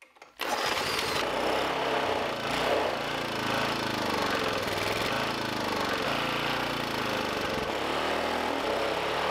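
Small single-cylinder engine with a see-through cylinder head running steadily. It cuts in abruptly about half a second in.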